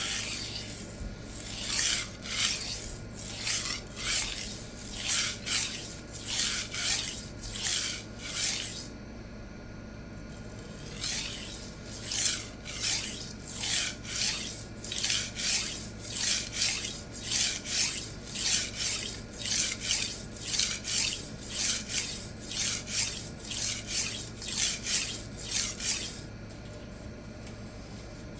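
A 52100 steel chef knife blade scraping back and forth on a resin-bond diamond sharpening stone in steady strokes, about two a second. There is a short pause about nine seconds in before the strokes resume.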